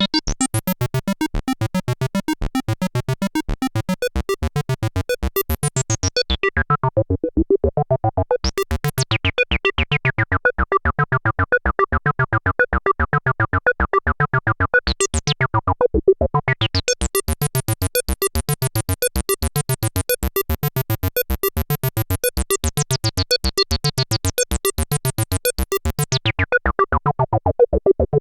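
Arturia MicroFreak synthesizer playing a squelchy acid bassline sequence of fast repeating notes. The resonant filter sweeps open and shut, briefly opening twice in the middle and then staying bright for a long stretch before closing down near the end.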